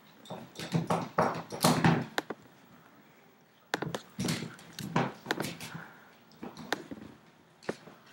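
Irregular clicks and knocks close to the microphone, in clusters with short gaps, as of a computer mouse being clicked and moved on a desk.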